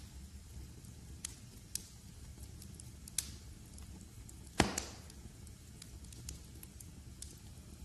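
Wood fire in a fireplace crackling over a low steady rumble, with a few scattered sharp pops and one loud snap a little past halfway.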